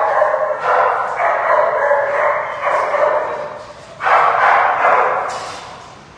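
Many dogs barking and yipping at once in shelter kennels, a continuous din that dips briefly and surges again about four seconds in, then fades.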